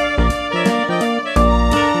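Background music: a pitched melody over a steady, regular beat.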